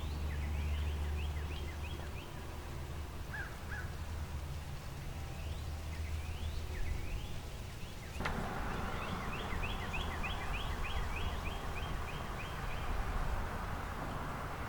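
Outdoor ambience of a songbird singing rapid series of short, slurred high notes: a brief run near the start and a longer one in the second half, over a low steady rumble. A sudden click about eight seconds in is followed by a louder steady hiss.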